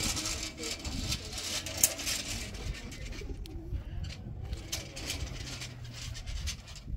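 Heavy stone roller being pulled on a rope over a loose gravel floor, crunching and grinding as it rolls to pack the floor down. Birds coo in the background.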